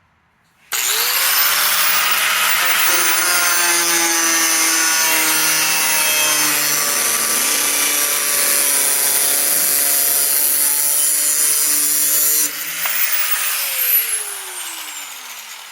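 A power tool cutting through the VW bus's original rusty rear-quarter sheet metal. It spins up with a rising whine under a second in and runs loud and steady, then is switched off about twelve seconds in and winds down with a falling whine.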